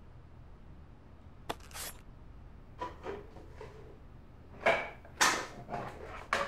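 A small wooden box and its lid being handled on a desk: a sharp click, then several knocks and scrapes of wood, loudest about halfway through.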